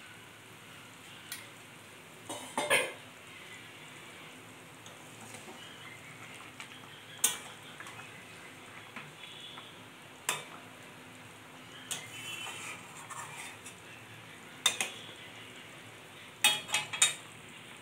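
Metal spatula scraping and knocking against a metal kadai as pieces of hilsa are turned in simmering mustard gravy, with scattered clicks every few seconds over a faint steady sizzle.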